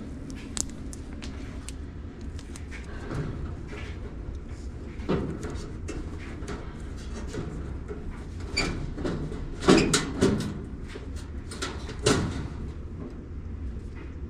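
Black electrical tape being pulled off the roll and wrapped around wire connections, in short bursts of scratchy tearing with small knocks from handling the wiring; the loudest bursts come a little before ten seconds in and again about twelve seconds in, over a steady low hum.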